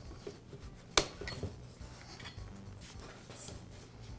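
Steel lopper saw chain clinking and rattling against the metal guide bar and sprocket as it is lifted off by hand, with one sharp metallic click about a second in and lighter clicks after it.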